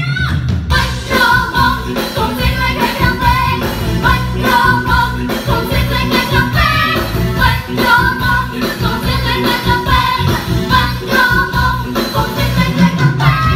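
A song played live over a venue's sound system: a lead singer with amplified backing music and a steady beat.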